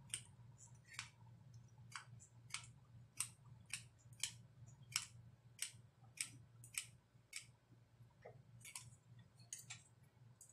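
Hot glue gun trigger clicking as it is squeezed again and again, about every half second, pushing through a glue stick that is feeding weakly. A faint steady low hum lies underneath.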